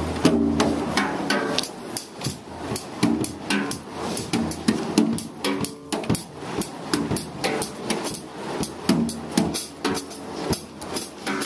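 Drum kit played live: a dense, uneven run of drum and cymbal hits, several a second.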